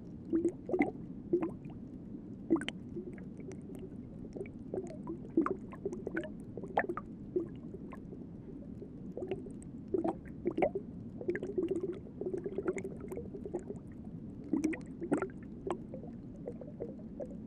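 Underwater ambience: irregular bubbling and gurgling pops, one to three a second, over a steady low rumble.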